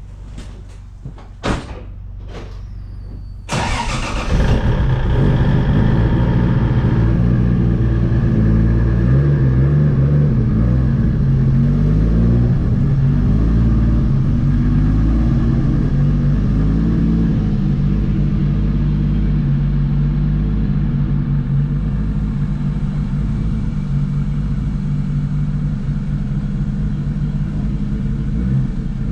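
A few clicks, then a truck engine starts about three and a half seconds in and settles into a steady idle.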